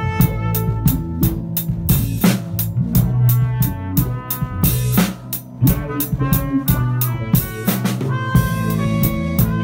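A big band playing a busy jazz-funk groove: the drum kit drives it with quick, regular snare and bass drum hits under held ensemble chords.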